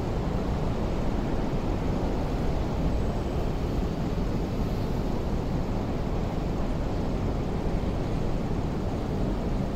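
Steady low rumble with a hiss on top and no distinct events: the background noise of an open-air railway station platform.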